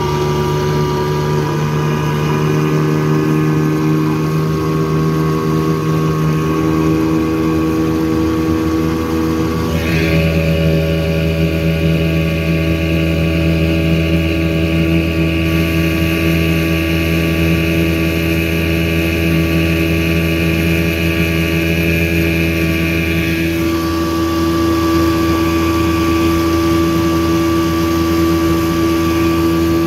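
1984 Evinrude 6 hp two-stroke outboard running steadily at full speed, pushing a small aluminium boat at about 14 mph, with its steady engine note and water rushing past the hull. The note steps abruptly twice.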